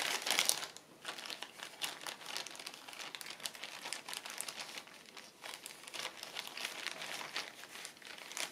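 Paper and craft materials being handled and shuffled, crinkling and rustling in quick irregular bursts, busiest in the first second.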